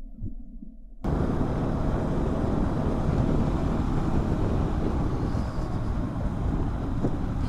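Riding noise from a moving maxi scooter: a steady rush of wind and road noise on the microphone. It cuts in suddenly about a second in, after a muffled low rumble.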